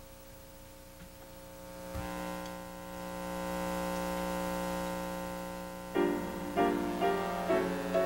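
Live band music beginning: a held chord swells in about two seconds in, then from about six seconds in piano chords are struck in a rhythm, roughly two a second.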